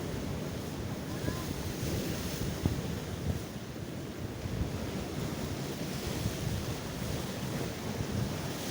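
Sea waves breaking and washing on the shore, with wind buffeting the microphone in a low, gusty rumble.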